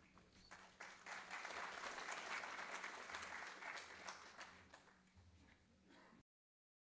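Audience applauding, building up about a second in and dying away, then cutting off abruptly to silence near the end.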